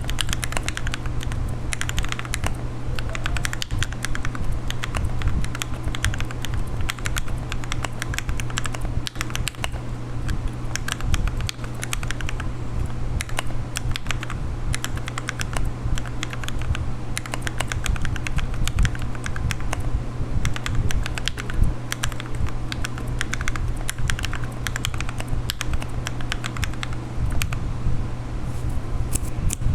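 Typing on a Rakk Lam-Ang Pro mechanical keyboard with lubed Gateron Milky Yellow Pro linear switches: a quick, uneven stream of keystroke clacks over a steady low hum.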